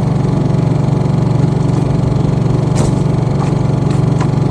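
Small portable gasoline generator running steadily in silent (eco) mode, powering a battery charger. A couple of light clicks come about three and four seconds in.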